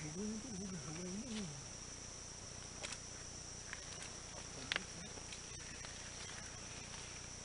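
Steady high-pitched drone of rainforest insects, with a person's low murmuring voice in the first second and a half and a few sharp clicks later on.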